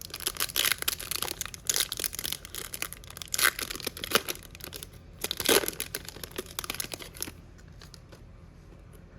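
Plastic foil trading-card pack wrapper being torn open and crinkled, a busy run of rustling and crinkling that stops about seven seconds in.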